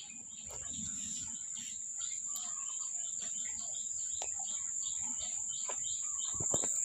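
Insects droning with one steady high-pitched whine, while birds chirp over it in short notes repeated a few times a second.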